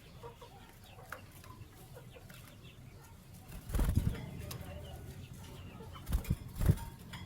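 Canaries in a cage: faint short chirps and small clicks, then loud flurries of flapping wings about four seconds in and again, three or four in quick succession, near the end.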